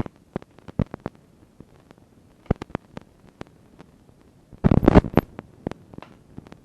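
Scattered sharp clicks and taps from a small screwdriver and tiny screws being handled on a laptop, with a denser burst of clatter about four and a half seconds in.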